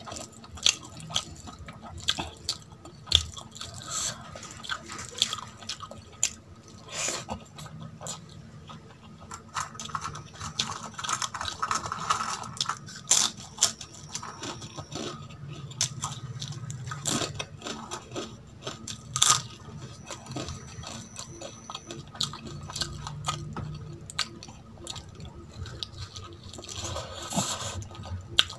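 Close-miked eating by hand: wet chewing and mouth sounds, fingers squelching rice into curry gravy, and crisp fried crackers crunching, as a stream of short clicks and snaps.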